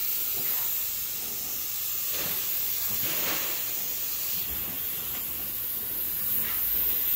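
Gravity-feed compressed-air spray gun hissing steadily as it sprays primer onto a car's body panel.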